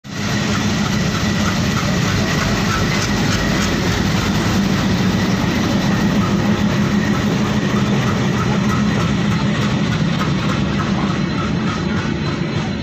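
Indian Railways WDM-3A diesel locomotive running as it hauls a passenger train slowly past, followed by the coaches rolling over the rails. A steady, loud engine drone throughout, with some wheel clatter.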